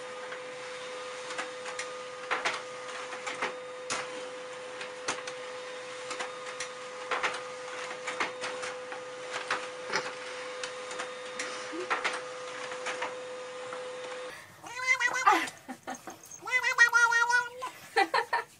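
A steady hum with scattered light clicks and taps. About 14 seconds in, a domestic cat starts meowing loudly, with several drawn-out, wavering meows.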